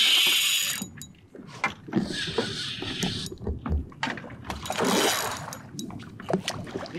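Fishing reel buzzing and clicking as a hooked fish is played on a bent rod, in three bursts of about a second each.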